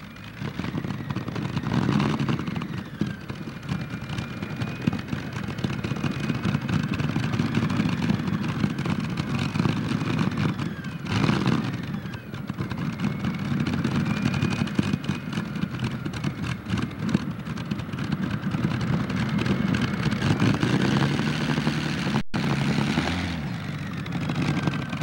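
Multi-engine modified pulling tractor's engines running loud at high revs under load, with a faint whine rising and falling above the engine note. The sound drops out for an instant near the end.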